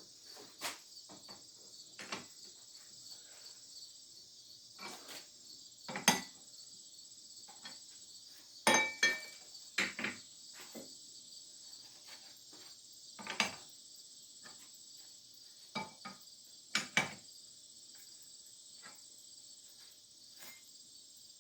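Crickets chirping steadily, with scattered sharp knocks and clicks from work at a lathe, a few of them with a short metallic ring.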